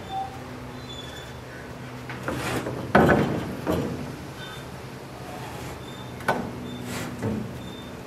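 Wooden 2x4 boards knocking and scraping against a steel evaporator pan and its barrel stove as they are worked under the pan's handles to lift the pan off the fire. A loud clunk comes about three seconds in, with more knocks near the end.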